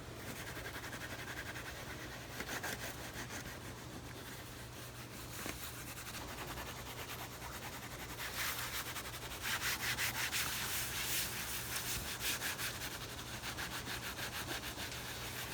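The bottom of an animal kennel being scrubbed clean: quick, rhythmic rubbing strokes that grow louder about halfway through.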